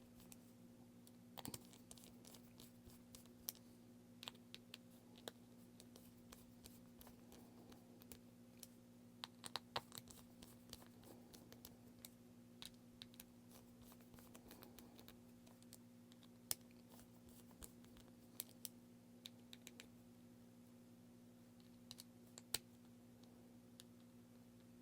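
Faint, scattered tiny clicks and ticks of a small screwdriver working the caseback screws of a G-Shock watch in a cross pattern, over a steady low hum.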